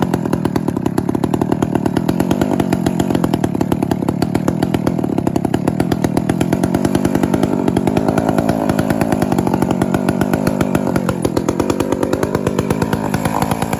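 Two-stroke chainsaw running hard, cutting into a large decayed cedar; its note shifts about eleven seconds in.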